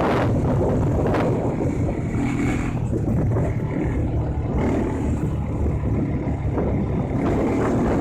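Loud, steady low rumble of wind buffeting the microphone, with short gusts along the way.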